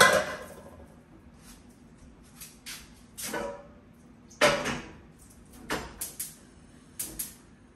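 Kitchen clatter: a series of short knocks and scrapes of pots, utensils and cupboard doors being handled, the loudest about four and a half seconds in.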